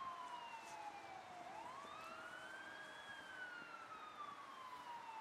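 Emergency-vehicle siren wailing: a slow tone that falls for about a second and a half, rises for about a second and a half, then falls slowly again.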